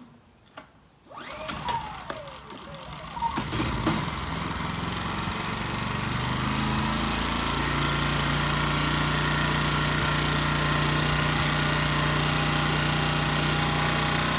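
Champion dual-fuel inverter generator's small engine, running on propane, pull-started with its recoil cord and catching on the second pull about four seconds in, then settling into a steady, fairly quiet idle in eco mode.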